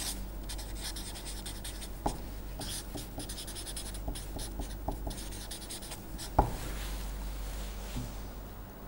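Felt-tip marker writing on paper: a run of soft scratchy strokes, with a sharper tap about six seconds in, and the writing stops near the end.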